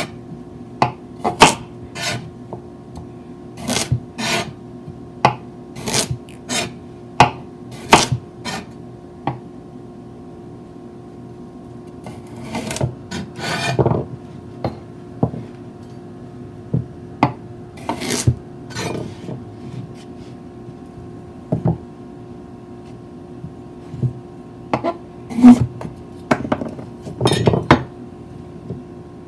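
Chef's knife chopping carrots into chunks on a plastic cutting board: sharp knocks as the blade goes through and hits the board, about one a second at first, then more irregular.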